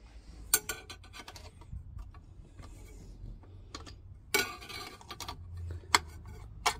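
A few scattered metallic clinks and taps as a bolt, nut and tool are handled against a stainless steel heater mounting plate, over a faint steady low hum.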